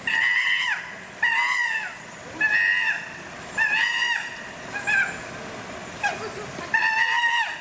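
Chimpanzee giving a series of high, pitch-steady calls, about one a second, typical of excited calling over food.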